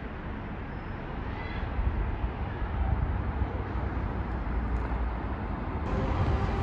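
Town ambience: steady traffic noise with a low rumble, growing louder about two seconds in.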